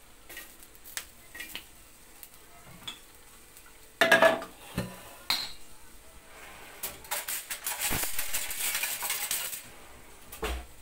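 Kitchen utensils and dishes clattering and clinking: a few light clicks, then a loud clatter about four seconds in, a couple of seconds of rough scraping noise in the second half, and a knock near the end.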